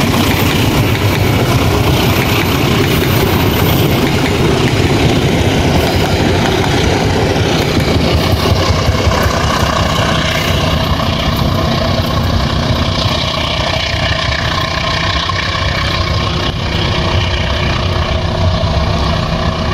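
Diesel engine of a commuter train departing the station, running loudly and steadily at close range; steady higher tones come in over it about halfway through.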